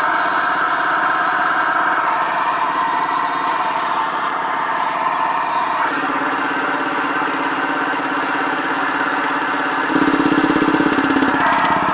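A motor-driven machine running steadily. Its tone shifts about six seconds in, and near the end it takes on a fast, even pulsing.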